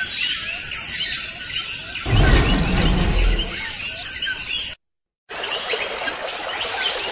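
Many birds chirping, like a jungle ambience. A low rumble lasting about a second and a half comes in about two seconds in. The sound drops out completely for half a second near the end, then the chirping resumes.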